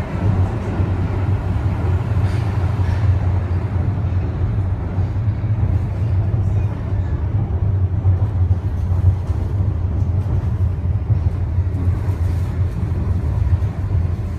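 Wuppertal Schwebebahn suspension railway car running along its track: a steady low rumble.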